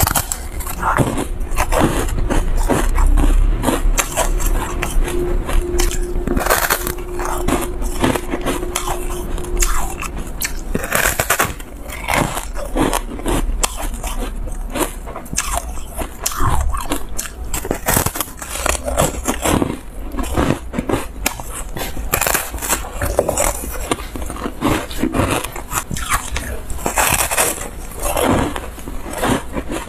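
Biting and chewing a yellow disc of frozen foam ice: a run of crisp, crackling crunches close to the mouth, one after another with short gaps.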